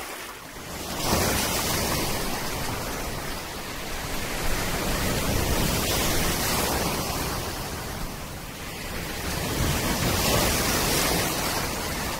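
Sea surf washing and breaking at the shoreline, a steady rush of water noise that swells about a second in, eases off, then builds again near the end.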